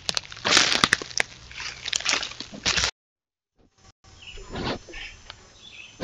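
Deer nosing the camera up close: loud breathy sniffs right at the microphone, mixed with sharp clicks and scrapes of its muzzle against the housing. The sound cuts to dead silence for about a second near the middle, then more sniffing follows.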